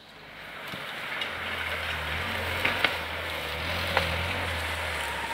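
Lada Niva's engine running with a steady low hum as the 4x4 creeps through forest mud, fading in over the first second, with a few faint clicks partway through.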